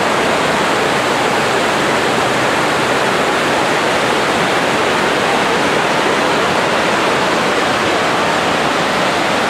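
The man-made waterfall of a 9/11 Memorial pool, water pouring in thin sheets down its stone walls into the pool below: a steady, loud, even rush of falling water.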